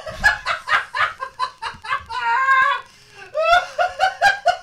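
A woman laughing hard in quick high-pitched bursts, about four a second, with a drawn-out squeal in the middle, a brief pause, then another run of laughter.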